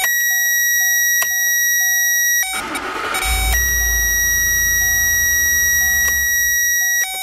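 Power Probe circuit tester sounding a steady high tone while it reads 12 volts on the accessory wire. About two and a half seconds in, the tone breaks off under the noise of the 2010 Ford Expedition's 5.4-litre V8 cranking and starting, because accessory power cuts out during cranking. The high tone then returns over the engine idling, and near the end it changes to a lower tone.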